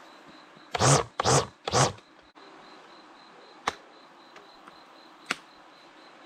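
Battery-powered string trimmer with nylon cord run in three quick bursts about a second in, then two sharp clicks later on.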